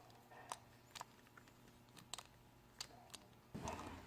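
Faint scattered clicks and taps of small metal carburetor parts and a tool being handled as the pilot jet is turned in, with a low rustle of handling noise near the end.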